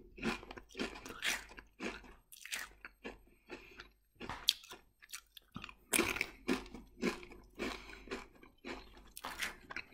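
A person chewing Pringles crisps. The reconstituted, formed potato crisps make irregular crunches, about two or three a second, with a couple of short pauses near the middle.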